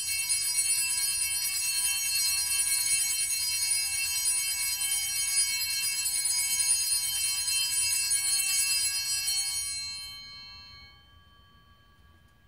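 Altar bells shaken at the elevation of the consecrated host, a cluster of high ringing tones held steadily for about ten seconds and then dying away.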